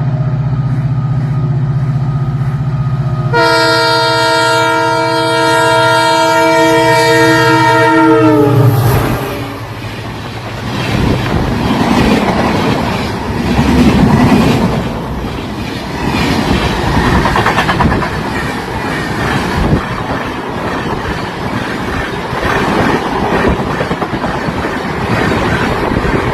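WDP-4D diesel locomotive passing: a steady low engine drone, then the horn sounding for about five seconds, its pitch dropping as it goes by. After that, LHB coaches roll past with their wheels clattering over the rail joints.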